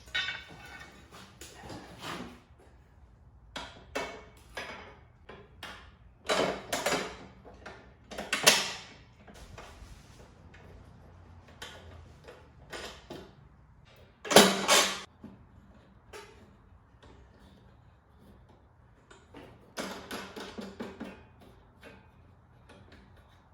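Lawn mower parts being handled and fitted during assembly: scattered clicks, knocks and rattles of handles, nuts and bolts, with a few louder clattering bursts, the loudest about halfway through.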